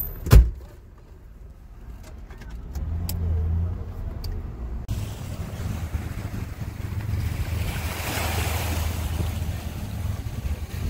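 Low rumble inside a car cabin with one sharp thump near the start. About five seconds in, this gives way to wind blowing on the microphone over choppy river water.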